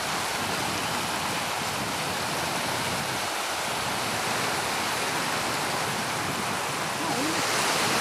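Shallow seawater washing over a sandy shore: a steady hiss of lapping water, getting a little louder near the end.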